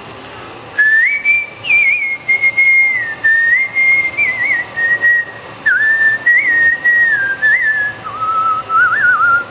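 A man whistling a song melody by mouth: one clear, pure note line with small trills and slides, starting about a second in. The phrases step gradually lower in pitch toward the end.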